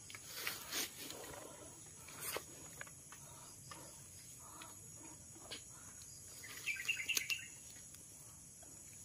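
Steady high-pitched drone of crickets and other insects, with a few sharp clicks early on and a brief, louder flurry of sharp sounds about seven seconds in.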